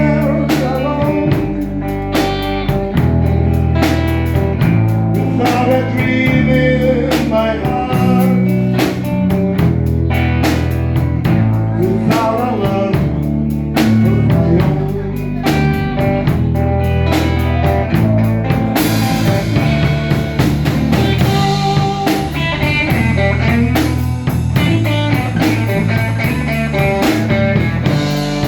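Live blues trio playing an instrumental break: electric guitar lines over a moving electric bass line and a drum kit keeping a steady beat. Cymbals ring out brighter about two-thirds of the way through.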